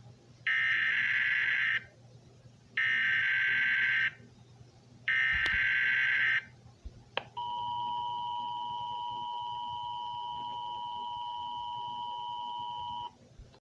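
Emergency Alert System signal: three short bursts of screechy SAME digital header data, then the steady two-tone EAS attention signal held about six seconds before it cuts off. This is the opening of a new alert.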